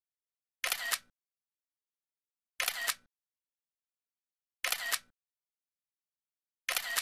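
A camera shutter click, repeated four times at even intervals of about two seconds, each click identical, with dead silence in between.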